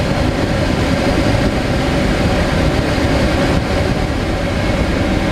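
Steady rushing of airflow over a glider in flight, heard inside the closed cockpit, with a faint steady tone underneath.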